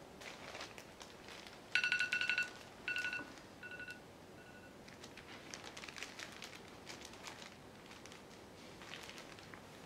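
A smartphone countdown timer alarm going off as the timed load hold runs out: a loud rapid run of beeps, then three shorter beeps, each fainter, until it is stopped. Afterwards the plastic bag of weight crinkles and rustles as it is handled.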